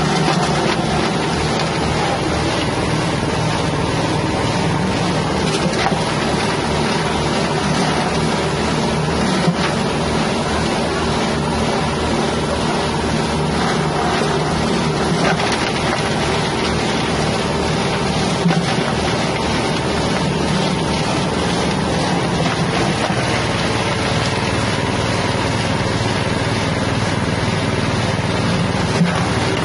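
Engine-driven wet spice and herb grinder, powered by a 6.5 hp engine, running steadily at speed, with a few brief knocks.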